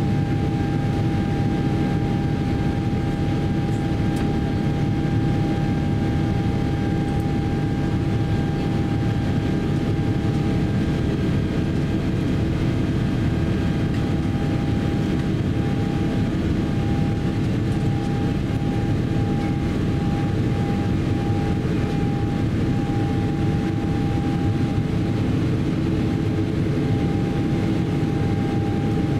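Cabin noise of a Boeing 777-300ER in flight, its twin GE90-115B engines and the rushing airflow making a loud, steady deep roar. A steady high whine on one pitch rides over it and turns broken and flickering from about halfway through.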